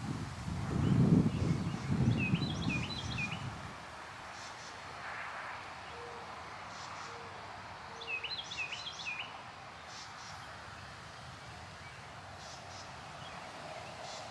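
Evening breeze blowing through trees: a gust rumbles on the microphone for the first few seconds, then settles to a steady rustling hiss. A bird chirps in two quick bursts of short calls, one early and one past the middle.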